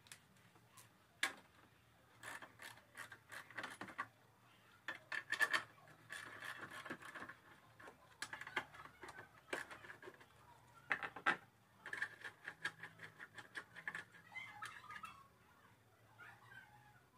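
Ratchet wrench clicking in short runs while the battery tray's nuts are undone, with a few sharp metallic knocks from the tools.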